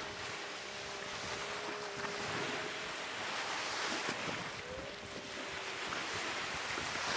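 Surf breaking and washing over a shallow rocky shoreline, with water sloshing around wading legs and wind buffeting the microphone.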